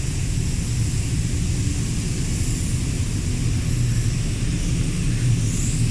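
Steady low hum of factory machinery with a hiss over it, unchanging in level.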